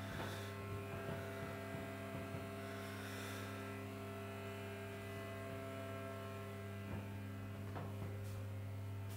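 Steady electrical hum: a low drone with a set of higher steady tones above it, unchanging throughout, with a few faint knocks.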